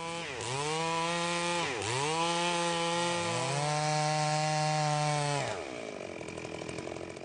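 A small engine running at high revs, its pitch dipping sharply twice and recovering, as if briefly loaded. It then holds steady and cuts out about five and a half seconds in.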